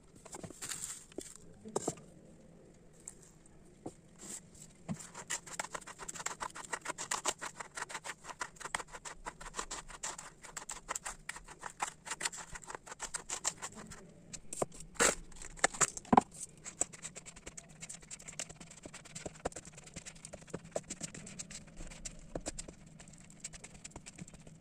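Blue silicone spatula scraping and stirring ground biscuit crumbs in a plastic bowl: a rapid run of small scrapes and clicks, with two louder knocks about two-thirds of the way through.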